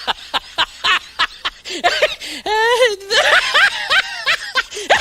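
A person laughing: rapid short snickers and giggles, with a longer drawn-out voiced sound about halfway through before the giggling picks up again.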